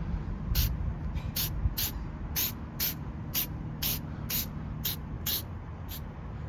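A protective headlight coating spray going on in about a dozen short hissing spurts, roughly two a second, starting about half a second in. This is the coating step of a Meguiar's headlight restoration. A low steady rumble runs underneath.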